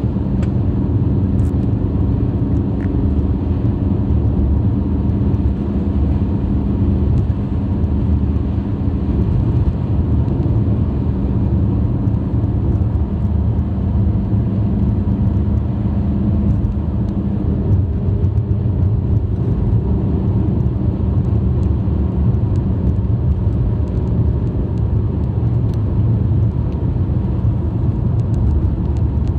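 2003 BMW 318i (E46) four-cylinder engine running steadily with tyre and road rumble as the car drives, heard from inside the cabin.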